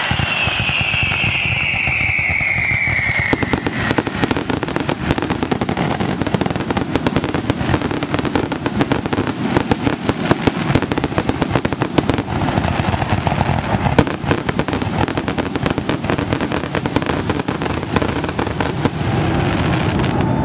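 Aerial fireworks display. A whistle falls in pitch over the first few seconds, then dense continuous crackling and popping runs with many bangs, the loudest about fourteen seconds in.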